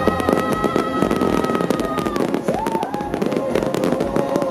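Fireworks launching and bursting in a fast, irregular run of sharp pops and crackles, with music playing underneath.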